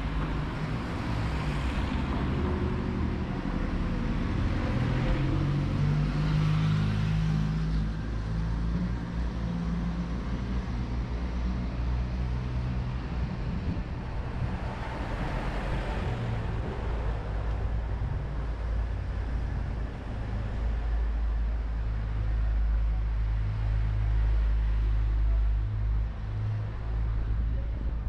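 Street traffic: cars running by, over a steady low engine rumble that swells as vehicles pass.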